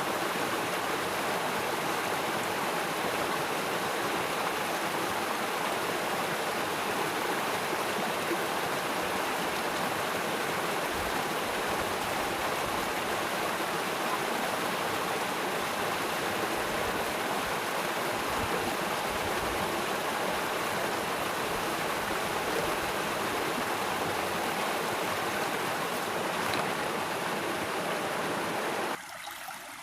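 Flowing river water, a steady rushing noise that drops away abruptly about a second before the end.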